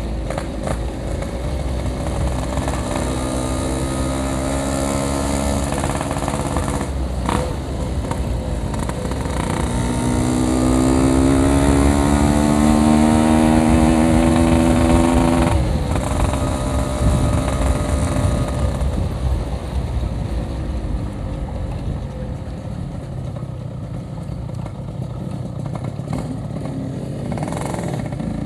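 Yamaha RX-King two-stroke single-cylinder engine with a packing-power exhaust, running under way. Its pitch climbs as the throttle is opened, briefly about four seconds in and then longer and louder from about ten seconds, before cutting off sharply near the sixteenth second.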